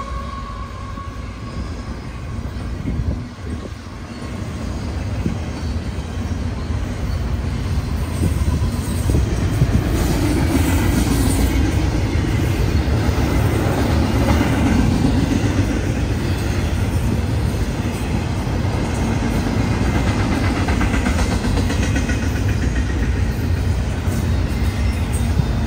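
A CSX double-stack intermodal train's container well cars rolling past on the rails: a steady rumble and clatter of steel wheels over the track, which grows louder over the first several seconds and then holds.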